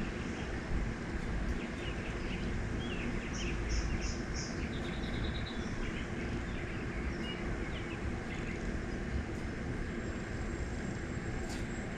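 Steady outdoor background rumble with small birds chirping now and then, including a quick run of four high notes about three and a half seconds in.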